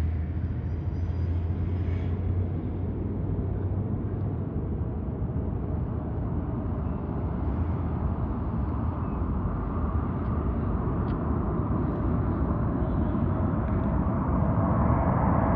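Boeing 747-8F freighter's GEnx jet engines on approach. A steady rumble grows slowly louder, and a rising engine whine comes through near the end as the aircraft closes in.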